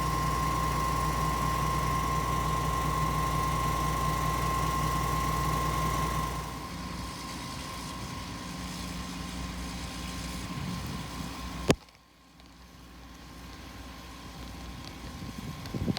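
Putzmeister 47-metre truck-mounted concrete pump running steadily, a low engine hum with a high whine over it. About six and a half seconds in, the whine stops and the sound drops to a quieter hum. Near the end there is one sharp click, then a sudden drop in level.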